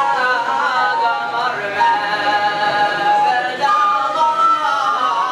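Unaccompanied male religious chanting (Hadrami inshad): a voice holds long melodic lines that slide from note to note, with no instruments or drums.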